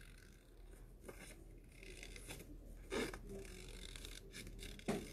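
Small scissors snipping through cardstock in short, irregular cuts as a spiral is cut out, faint throughout, with two slightly louder soft knocks or rustles, one past the middle and one near the end.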